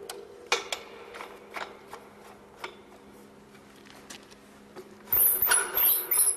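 SCORP 220 Plus orbital pipe cutter: a series of sharp mechanical clicks and knocks, then about five seconds in a loud harsh grinding burst that fits the tool starting to cut.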